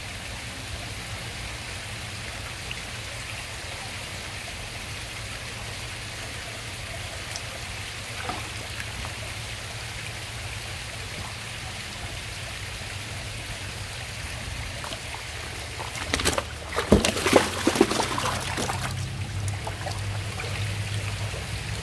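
Koi pond water running with a steady trickle, broken about sixteen seconds in by a few seconds of loud splashing.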